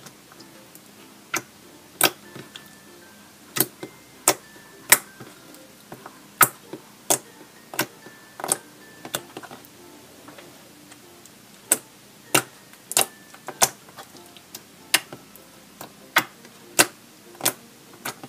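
Clear borax slime being squished and played with, giving off many sharp, irregular pops and clicks as trapped air bursts. Faint background music plays under them.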